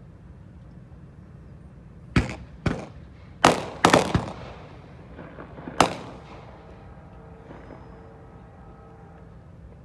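A quick run of about seven sharp bangs or knocks, loud and sudden, each trailing off in a short echo, over a steady low background rumble.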